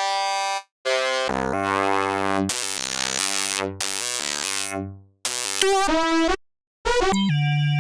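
Subtractor synthesizer playing a series of different preset patches in turn, with short gaps of silence between them. Some notes glide in pitch and some are bright, buzzy sweeps.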